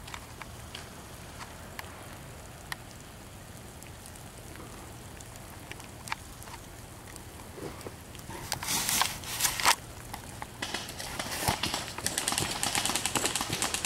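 A low, even background with scattered faint clicks. About two-thirds in come two loud bursts of rustling noise, then airsoft electric guns firing rapid full-auto bursts, a quick rattle of many shots a second running on to the end.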